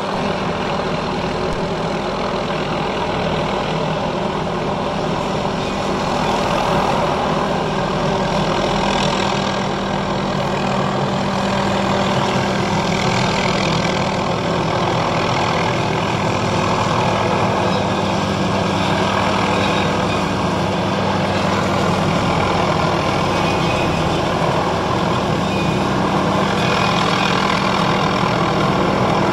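Helicopter running steadily while it works a suspended aerial tree saw along a power-line corridor, a continuous engine-and-rotor sound with several constant tones that swells briefly a few times.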